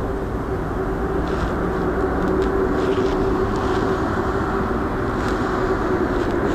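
Passenger train of coaches at a station platform: a steady rumble with a steady hum through it and a few faint ticks.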